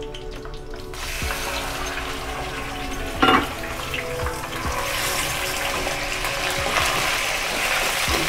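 Raw chicken pieces hitting hot oil in a wok and starting to sizzle: the hiss sets in about a second in and grows louder. A single sharp knock about three seconds in.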